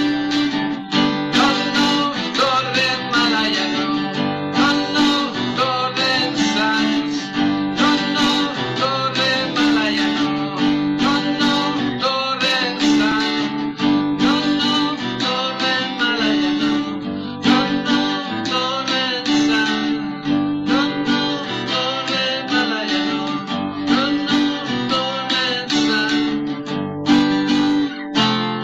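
Guitar-led music, with plucked and strummed strings over a repeating low note.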